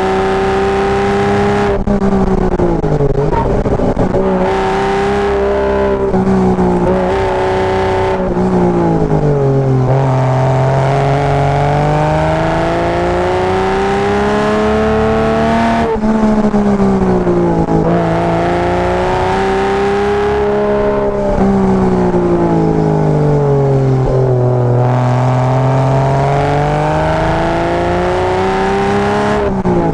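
Porsche Boxster with a tuned exhaust driven hard up a winding road, its engine note repeatedly climbing in pitch under acceleration and falling away as it slows, with sudden drops about 2, 8 and 16 seconds in.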